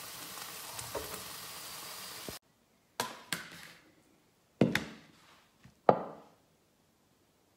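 Mackerel fillets and vegetables sizzling in a hot grill pan, cutting off abruptly a little over two seconds in. Then four sharp knocks as a frying pan and silicone mat are set down on a wooden table.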